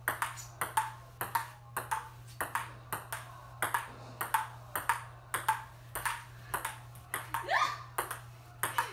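Table tennis rally: a plastic ping pong ball clicking off paddles and the table in a steady rhythm of about four hits a second. A short rising voice-like sound comes about seven and a half seconds in.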